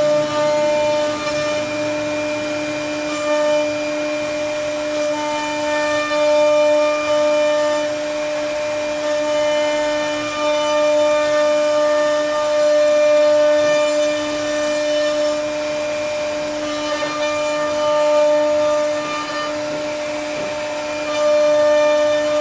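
CNC router spindle running at a steady high-pitched whine while its bit carves into a wooden board, the cutting noise swelling and easing as the tool moves along its path.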